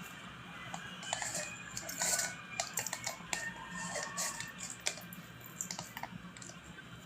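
Sparse, irregular clapping from crowd and players in a cricket ground, applause for a batter reaching his half-century.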